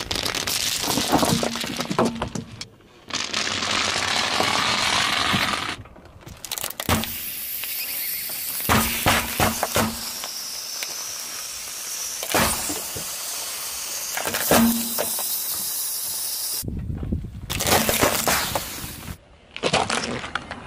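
A car tyre rolling slowly over objects and crushing them, a block of glass marbles among them, with repeated sharp cracks, snaps and crunches. The sound cuts off abruptly several times and starts again, as one short crushing clip follows another.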